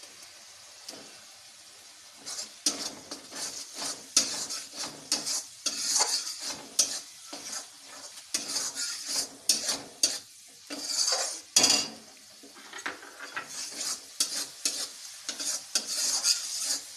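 A spatula stirring and scraping a spice paste around a pan of hot oil, with the oil sizzling. The masala is being fried. The irregular scraping strokes begin about two seconds in over a steady sizzle.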